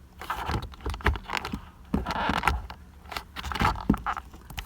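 Irregular clicks, taps and short scrapes from handling a loosened steering-wheel airbag module and its plastic steering-wheel parts.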